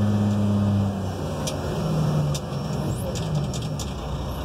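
Articulating dump truck's diesel engine running, heard from inside the cab; its steady hum drops off about a second in as the truck slows to a stop.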